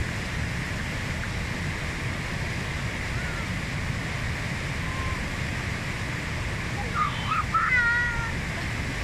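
The Gave, a mountain river in flood, rushing steadily: a dense, even roar of fast turbulent water. About seven seconds in, a few short high calls that slide in pitch stand out over it.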